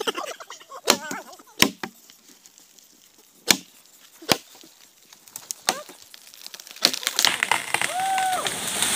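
Naga dao blade chopping into a tree trunk: sharp single strikes, roughly one every second or so, about seven in all. After about seven seconds a rushing noise swells up and a short pitched call sounds near the end.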